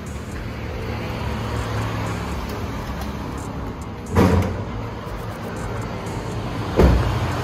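Honda Brio engine idling steadily, with two sharp thumps from the car, one about four seconds in and one near the end.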